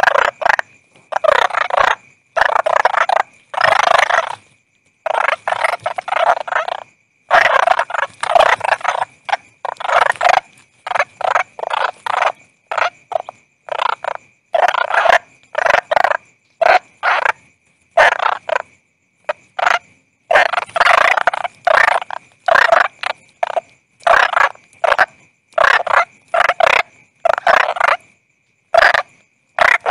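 Frogs calling: a fast, uneven run of croaks, some short and some drawn out for most of a second, with a thin steady high tone running beneath them.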